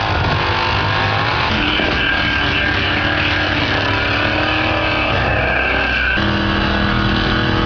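A drag car doing a burnout: the engine revs hard while the rear tyres spin. The engine note changes abruptly about six seconds in.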